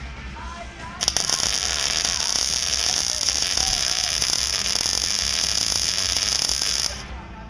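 MIG welder arc crackling steadily as a bead is run, starting suddenly about a second in and cutting off about six seconds later.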